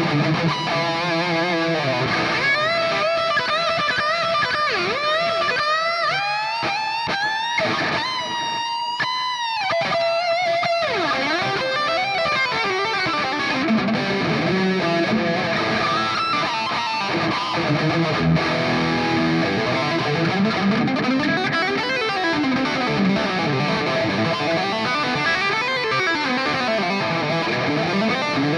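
Electric guitar played through a NUX MG-30 multi-effects processor: a sustained lead line with string bends and vibrato, then quicker runs up and down the neck.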